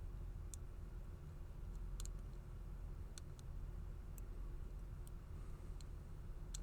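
Faint, scattered metallic clicks of a pick wire working the brass levers inside a four-lever padlock under light tension, about one click every half second to a second, over a low steady hum.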